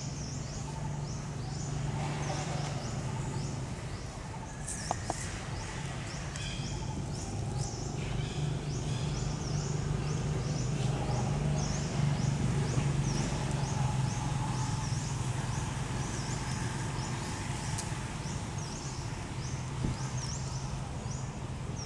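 Outdoor ambience: a steady low hum, with a short high chirp repeating about twice a second.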